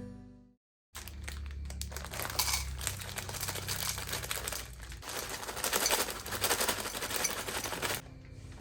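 Background music fading out, then dense crinkling, crackling noise made of many small clicks from about a second in until near the end.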